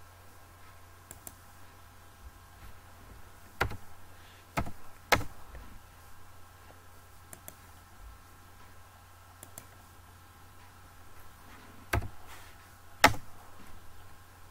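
Computer mouse and keyboard clicks: three sharp clicks about four to five seconds in and two more near the end, over a faint steady hum.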